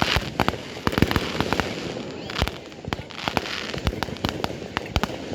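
Fireworks going off in quick, irregular succession: many sharp bangs and pops, several a second, with stretches of crackle in between.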